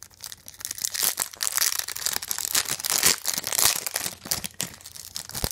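Foil wrapper of a Flair Showcase basketball card pack being torn open and crinkled by hand: a dense run of crackling and tearing, with a sharp click near the end.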